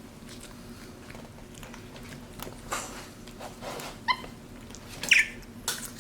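Capuchin monkey giving two short high-pitched squeaky calls, about four seconds in and just after five seconds, the second louder and higher. Short noisy rustles of handling in between.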